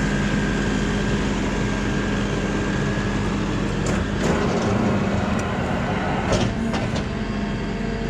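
Motor vehicle engine running steadily with a constant low hum, a few light clicks and knocks in the second half.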